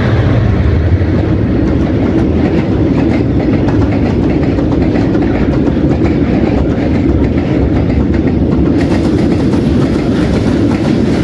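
Loaded covered freight wagons rolling past at close range: a steady, loud rumble of steel wheels on rail with fast clickety-clack over the rail joints.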